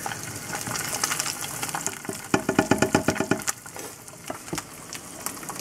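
Eggs frying in butter in a nonstick pan: a steady sizzle with fine crackling. About two seconds in, a second of rapid, buzzy rasping stands out as the loudest part.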